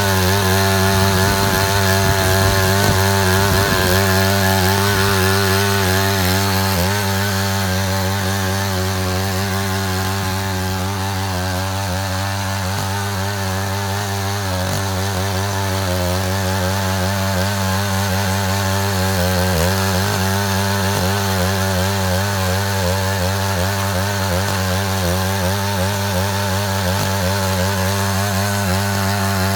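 Engine of a Matsuda walking tractor running steadily while cutting a ditch, its pitch wavering slightly with the load.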